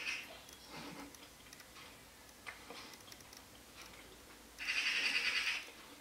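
A Eurasian magpie giving its rattling chatter at a cat, mobbing it away from its nest. One burst dies away at the very start and another lasts about a second near the end, with faint ticks between.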